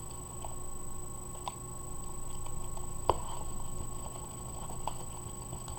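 Sticky glue-and-detergent slime being mixed, giving small wet clicks and squishes with one sharper click about three seconds in, over a steady background hum.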